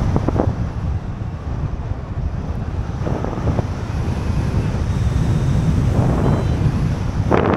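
Wind rushing over the microphone of a camera carried in paraglider flight: a steady, heavy low buffeting with several brief louder gusts.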